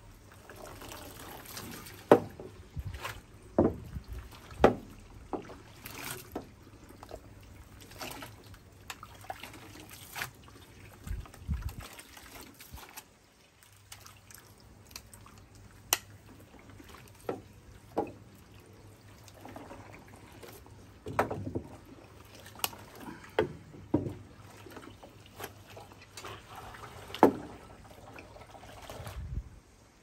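Water streaming and dripping off sodden towels back into a twin-tub washing machine's wash tub as they are lifted out with wooden tongs, with splashes and occasional sharp knocks scattered throughout.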